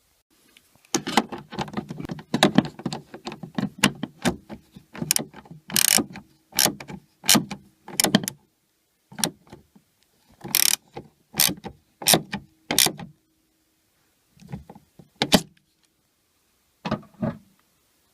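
A series of short, irregular clicks and clunks from a nut and screws being fitted and tightened to plastic interior trim with hand tools, with brief pauses between bursts.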